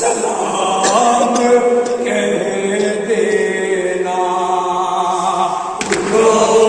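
Men's voices chanting a noha, a Shia mourning lament, sung without instruments into a microphone.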